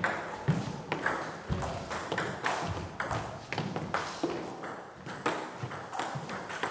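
Celluloid table tennis ball being struck by bats and bouncing on the table in a rally: a quick, irregular run of sharp clicks in a large hall.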